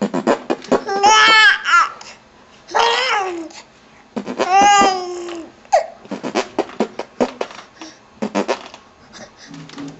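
Baby laughing: a few long, high-pitched squealing laughs in the first half, then quick short bursts of giggling.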